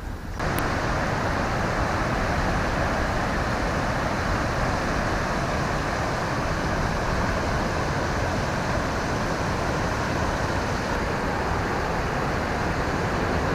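Steady rushing of floodwater pouring through the open gates of a hydroelectric dam's weir into the river below, starting abruptly about half a second in.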